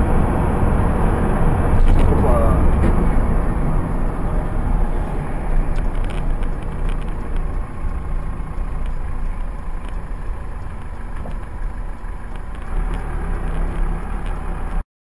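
Steady engine and road rumble heard from inside a moving car through a dashcam's microphone, with a few short sharp knocks. It cuts off abruptly near the end.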